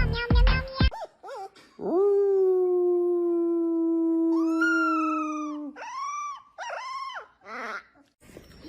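A dog howling: one long held howl of about four seconds that rises in pitch near its end, then two or three short howls.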